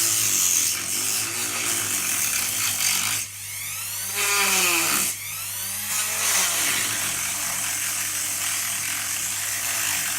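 Ryobi power tool with a diamond blade cutting around bathroom tiles, a harsh grinding noise. About three seconds in it eases off and its pitch swings down and up as the speed changes, then it runs on; the owner thinks its speed control no longer holds a low speed.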